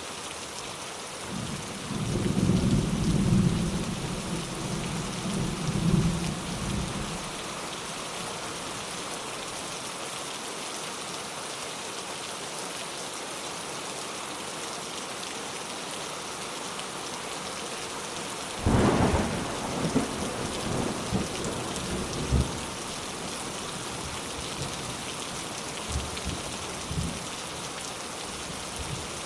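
Steady rain falling, with thunder: a low rolling rumble a couple of seconds in that lasts about five seconds, then a sharper clap about two-thirds of the way through that rumbles on for a few seconds, and fainter rumbles near the end.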